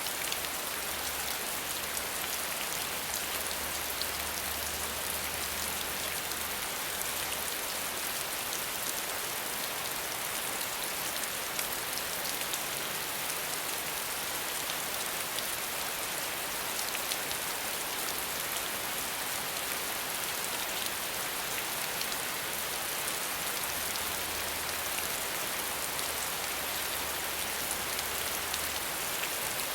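Steady rain without thunder: an even, unbroken hiss of rainfall with fine drop ticks through it.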